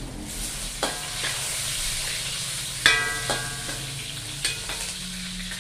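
Galangal and Indonesian bay leaves sizzling with chilies, shallots and garlic in hot oil in a steel wok, stirred by a metal spatula that scrapes and knocks on the pan. A handful of sharp knocks, the loudest a ringing metallic clang about three seconds in.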